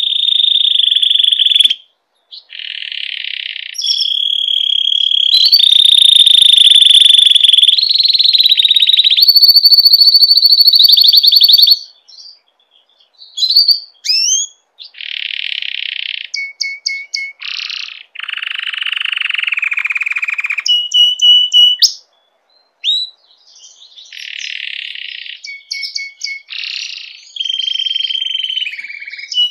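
Domestic canary in breeding condition singing: long runs of fast trills and held whistled notes, then from about halfway through shorter rolling phrases broken by brief pauses.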